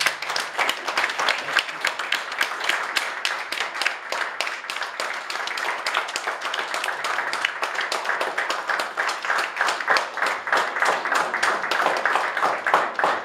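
Audience applauding: many people clapping in a dense, steady patter that thins out near the end.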